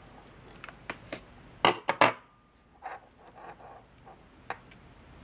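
Small metallic clicks and clinks from handling a carburettor's automatic choke unit and metal tweezers, with two louder sharp clacks close together about two seconds in.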